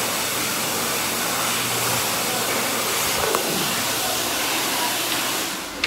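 Electric hand dryer blowing air in a steady, loud hiss with a low motor hum, cutting off near the end.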